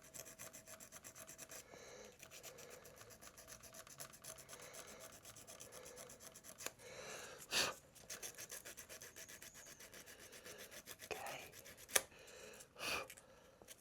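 Sandpaper rubbed by hand in quick back-and-forth strokes over a small part, with a louder scrape about halfway through and a sharp click near the end.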